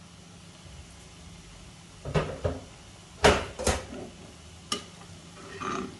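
A handful of short, sharp metal knocks and clinks as a pressure cooker pot and its lid are handled on a gas stove.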